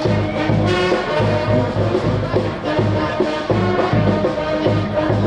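Brass street band playing an upbeat tune, horns in several parts over low bass notes on an even beat, about two a second.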